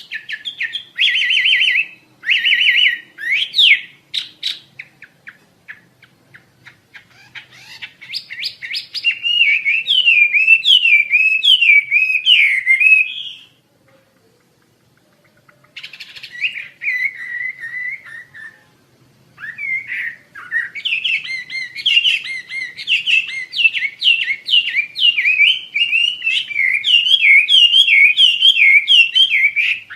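Asian fairy-bluebird (wambi) singing a fast run of high, whistled, warbling notes, with a pause of about two seconds halfway through before the song resumes.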